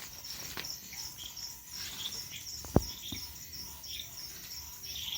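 Crickets chirping in a steady, evenly pulsing chorus, with scattered shorter chirps over it. One sharp crack stands out a little past halfway.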